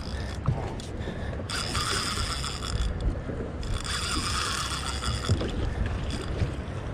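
Fishing reel whirring under load from a large cobia on the line, in two spells of about a second and a half each, the first beginning about a second and a half in. A steady low rumble runs underneath.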